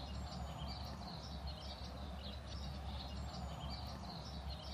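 Outdoor ambience of small birds chirping over and over, with a few faint thin whistles, over a low steady rumble.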